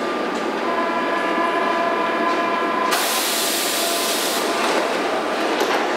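Berlin U-Bahn F-type train standing at the platform: a steady electrical whine made of several held tones, then, about three seconds in, a loud hiss of compressed air lasting about a second and a half.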